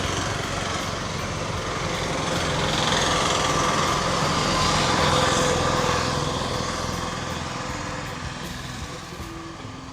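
A small engine running, growing louder toward the middle and fading away near the end.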